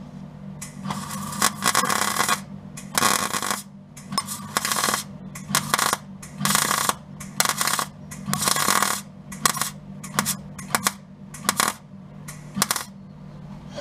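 MIG welder arc crackling in about a dozen short bursts, each well under a second to about a second long with brief pauses between, as a plug weld is built up tack by tack through a drilled hole in car body panels. A steady low hum runs underneath.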